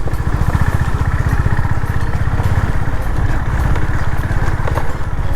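Honda CB 350RS's air-cooled single-cylinder engine and exhaust running at a steady cruise while riding, an even fast thump with wind and road noise over it.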